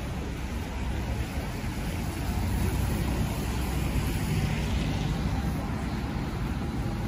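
Street traffic on wet roads: a steady low rumble with tyre hiss that swells midway through as a car goes by.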